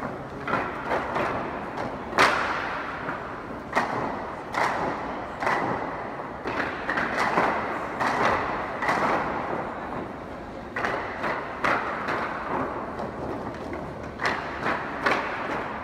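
A group of dancers stamping in unison in wooden clogs on floor mats: strikes come in clusters with short pauses between, the loudest stamp about two seconds in.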